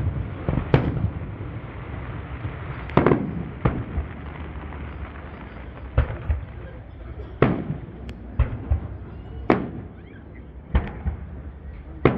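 Aerial fireworks shells bursting in an uneven series of sharp bangs, one every second or so, each trailing off in a short low rumble.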